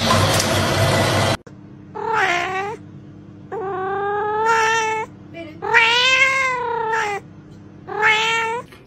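A toilet flushing, cut off abruptly about a second and a half in. Then a cat gives four long, drawn-out meows that rise and fall in pitch, the second and third lasting about a second and a half each.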